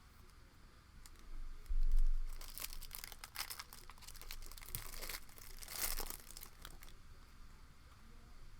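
Foil trading-card pack wrapper being torn open and crinkled, in a run of scratchy rustles, after a dull knock on the table about two seconds in.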